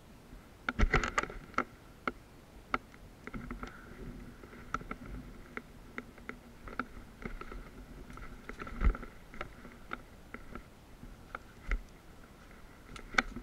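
Scattered sharp clicks and knocks, irregular: a quick cluster about a second in, single ones spread through, and a heavier knock with a low thud near nine seconds.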